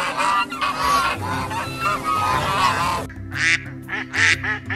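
A flock of domestic geese honking over one another, repeated calls for about three seconds; then, after a sudden change, domestic ducks quacking in short, quick calls.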